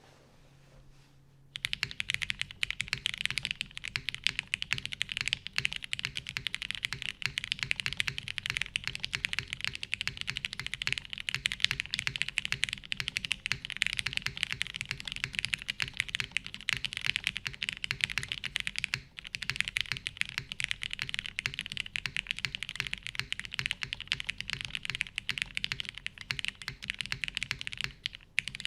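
Fast, continuous typing on a custom mechanical keyboard: TGR Jane V2 with lubed, retooled Cherry MX Black linear switches on a carbon-fibre half plate, CRP keycaps and Durock stabilizers. The keystrokes start about a second and a half in as a dense, even clatter.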